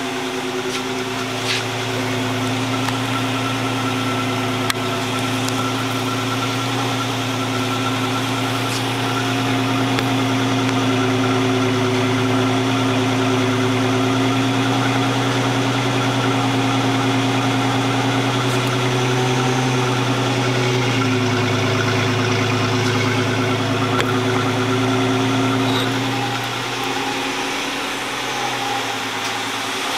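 2004 Nissan Xterra SE's V6 engine idling steadily, heard at the tailpipe. The note drops slightly about two-thirds of the way through. This follows a rough start-up that set a cylinder 6 misfire code.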